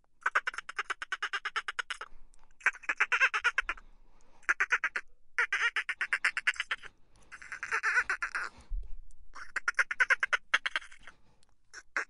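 Bottlenose dolphin making pulsed calls: about seven bursts in a row, each a fast train of clicks lasting one to two seconds, with short gaps between.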